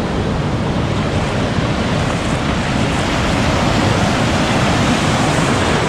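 Ocean surf breaking and washing up the beach in a steady rush, swelling a little toward the middle.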